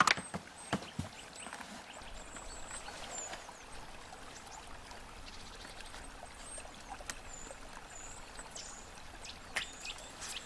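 Quiet outdoor garden ambience: a steady trickling, water-like hiss with short, high bird chirps scattered through it. A brief sharp click right at the start.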